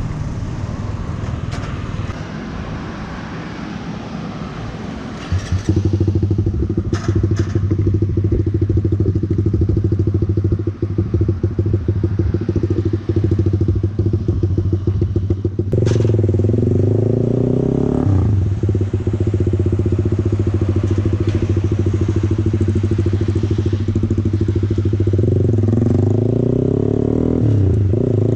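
Motorcycle engine running under load, heard from on the bike: after a few seconds it jumps to a loud, steady droning note as the bike gets under way at speed, with a short break in the note about two-thirds of the way through.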